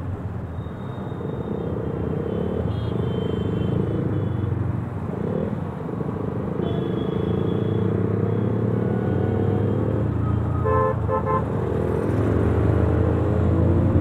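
Motorcycle engine running steadily with road noise while riding in city traffic, its pitch rising near the end as it speeds up. A vehicle horn gives several quick beeps about three-quarters of the way through.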